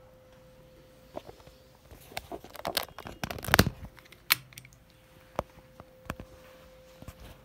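Handling noise from fingers on the camera close to its microphone: a burst of rustling, scraping and clicking that peaks about three and a half seconds in, then a few single clicks. A faint steady hum runs underneath.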